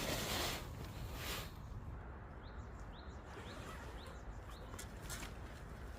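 A bird repeating a short rising chirp about twice a second, after a few bursts of rustling in the first second or so, over a steady low background hum.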